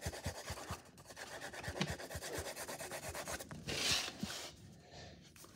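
Notebook paper rubbing and rustling as the sheet is handled and curled, with a few soft low knocks and a brief louder rub about four seconds in.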